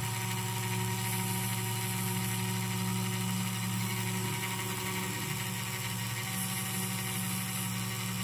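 CNC spindle motor running at a steady speed with a small drill bit, drilling through-holes in a copper-clad FR4 circuit board. An even electric hum and whine.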